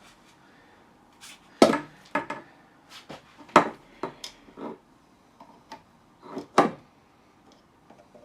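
Parts of a telescopic suitcase handle knocking and clicking as a removed piece is fitted back into it. The knocks come as a string of separate sharp ones, the loudest about one and a half, three and a half and six and a half seconds in.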